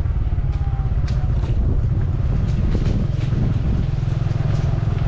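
A vehicle engine running steadily, a low pulsing rumble, with light scattered rattles.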